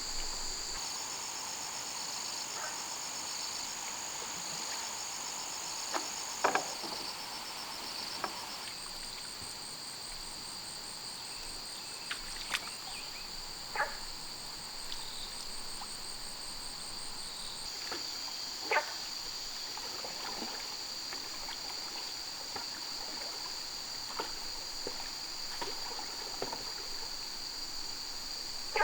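Steady high-pitched insect chorus, several shrill tones at once, some trilling in fast pulses that shift partway through. Scattered sharp knocks and taps come through it, the loudest about six and a half seconds in and again near nineteen seconds.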